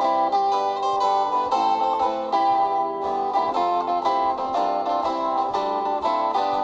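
Instrumental break in the song's backing track: a quick, bright melody on a plucked string instrument, with no singing.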